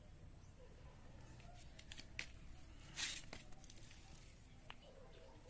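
Light handling noises: a few sharp clicks, then a short scraping rustle about three seconds in, followed by a couple more ticks.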